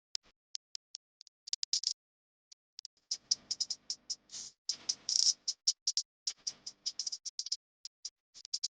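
Irregular light clicks and taps of a kitchen utensil against a bowl, with two denser stretches of clattering about three and five seconds in.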